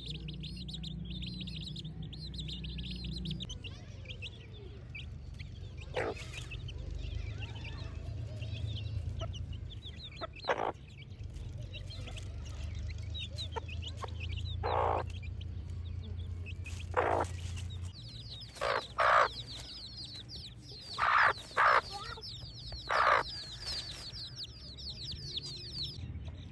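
Domestic chicks peeping continuously in a dense run of short, high chirps. A hen clucks loudly about nine times over this, mostly in the second half.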